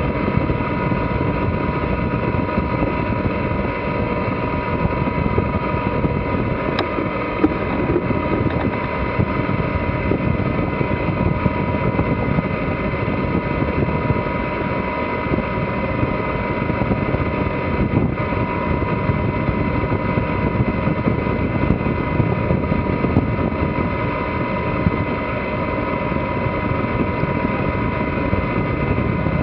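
Steady drone of a J/111 sailboat motoring under its inboard diesel engine, held at a constant pace, mixed with wind and water rushing past the hull.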